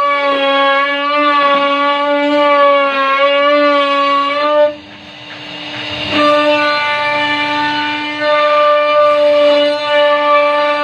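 CNC router spindle whining at a steady high speed while cutting wood, its pitch wavering slightly with the load. About halfway through, the whine drops out for a second or so, leaving a quieter rushing noise, then comes back at the same pitch.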